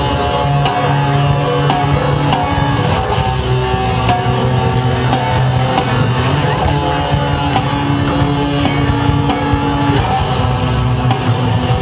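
Rock music: a band playing with guitar and drum kit.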